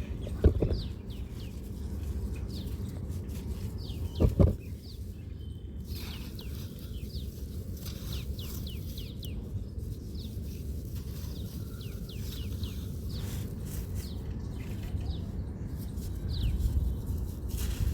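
Small birds chirping, with short downward-sliding calls repeating throughout, over a steady low rumble. There are two brief louder knocks, one about half a second in and one about four seconds in.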